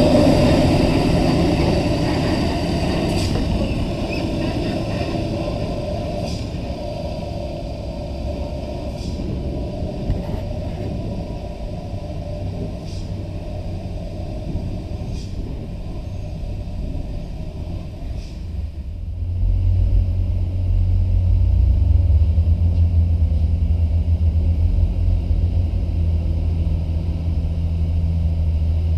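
Hino hauling dump truck's diesel engine running loudly as it passes close, then fading as it pulls away along the dirt road. About two-thirds of the way through, a strong steady low rumble comes in suddenly and holds.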